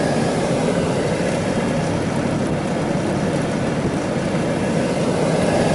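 Steady engine and road noise of a vehicle being driven.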